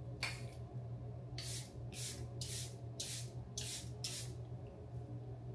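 Charlotte Tilbury Airbrush Flawless Setting Spray, a pump-mist bottle, spritzed onto the face seven times. Each spritz is a short hiss: one comes just after the start, then six quicker ones about half a second apart.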